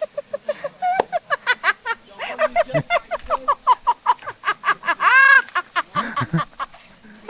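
People laughing hard and squealing in rapid bursts, with one loud shriek about five seconds in, as small fish nibble their feet in the water.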